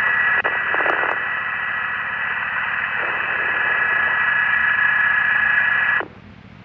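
A police scanner channel keyed open with no voice: a steady hiss of radio static with a high steady tone in it. It drops away suddenly about six seconds in when the transmission ends.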